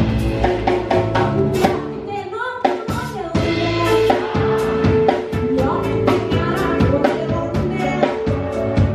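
A woman singing a song over band accompaniment, with a drum kit keeping a steady beat; she holds one long note about four seconds in.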